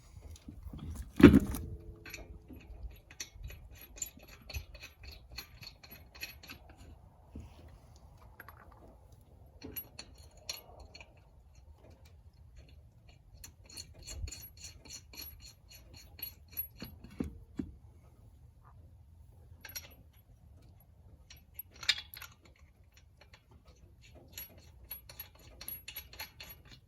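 Lug nuts being spun onto the wheel studs while the spare wheel is mounted: runs of quick, even metallic clicking with a jingly ring, starting and stopping several times. A loud metallic clunk with a brief ring comes about a second in, and another sharp knock near the end.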